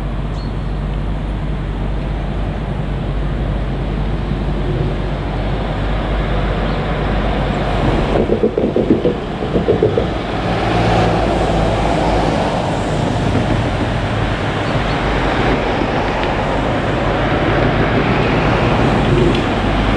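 Forklift engine running steadily as the truck manoeuvres, with wind rumbling on the microphone and a fluttering gust about eight to ten seconds in.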